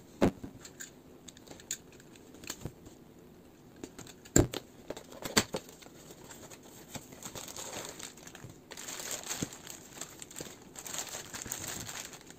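A cardboard figure box being handled and opened, with a few sharp knocks and taps, the loudest about four and a half and five and a half seconds in. For the last few seconds a clear plastic bag holding the figure's parts crinkles.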